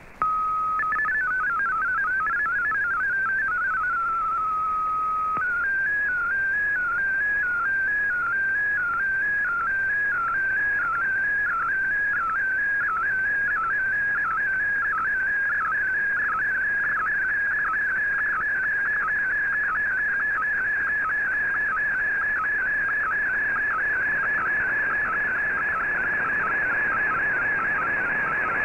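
Shortwave digital-mode tones from a radio receiver over background hiss: a steady tone, about three seconds of warbling MFSK data tones, a held tone, then from about five seconds in a fast-warbling tone repeating its pattern over and over, more quickly later on. This is an MFSK colour picture being transmitted and decoded line by line.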